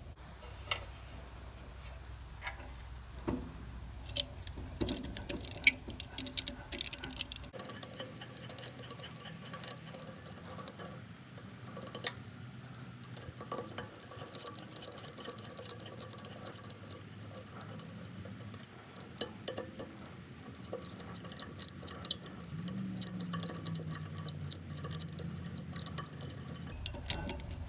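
A ratchet wrench clicking in quick runs while the chipper's blade bolts are worked, with scattered metallic clinks of tools and parts between the runs.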